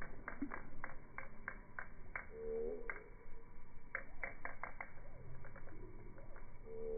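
Frogs calling from a lily pond: a run of sharp clicking notes, about three a second, pausing briefly, with a short pitched call about two and a half seconds in and another near the end.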